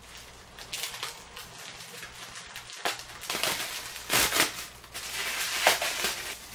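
Brown honeycomb kraft packing paper crinkling and rustling as it is unwrapped from an item by hand. The crackles come irregularly and grow louder and denser about halfway through.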